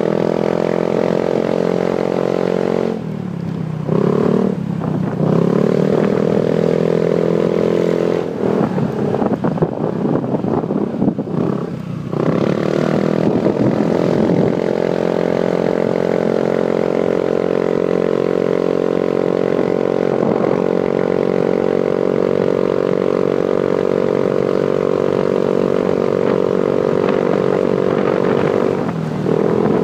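Motorcycle engine running under load on a climb. Its revs drop and pick up again several times in the first twelve seconds, then hold steady and high.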